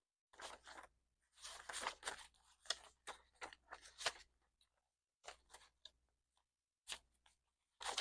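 Paper banknotes and cash envelopes being handled, rustling and crinkling in irregular bursts with short pauses.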